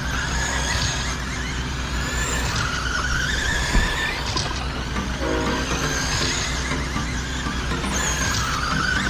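Electric RC short-course trucks racing on a dirt oval, their motors whining and rising and falling in pitch as they speed up and slow down, over a steady rumble.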